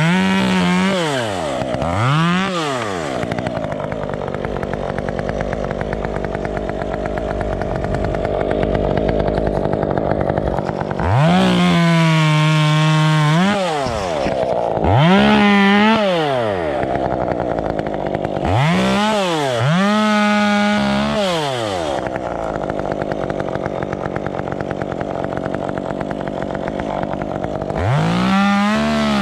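Two-stroke chainsaw revved up and let back to idle about six times, mostly in quick blips, with one longer high-rev run of a couple of seconds about eleven seconds in, idling steadily between.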